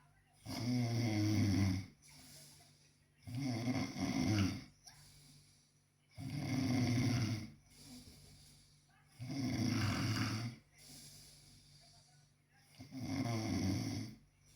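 A sleeper snoring: five snores about three seconds apart, each lasting over a second, with quieter breathing between them.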